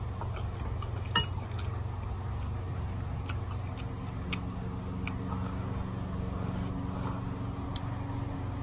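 Light clinks and clicks of eating utensils against a noodle bowl, one sharper click about a second in, over a steady low hum.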